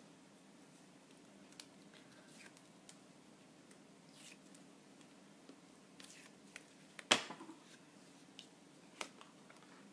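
Quiet handling of cardstock and adhesive tape on a craft desk: faint rustles and light clicks over a low steady hum, with one sharper tap about seven seconds in and another near the end.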